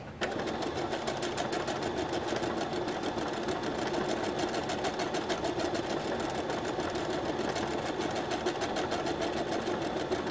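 Brother SQ9130 computerized sewing machine stitching steadily at speed, with a rapid, even stitch rhythm, sewing a decorative heart stitch pattern. It starts up about a quarter second in.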